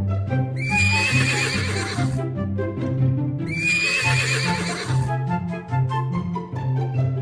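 Two horse whinnies, each a wavering high call about a second and a half long, about half a second in and again at about three and a half seconds, over background music with a steady bass beat and plucked notes.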